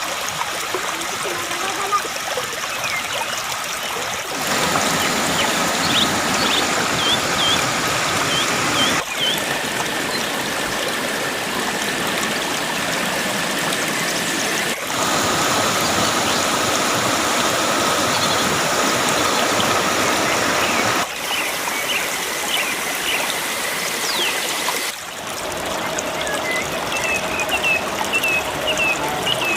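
Waterfall and stream water rushing steadily, its loudness jumping abruptly several times as the sound cuts between takes. Short high chirps come in now and then.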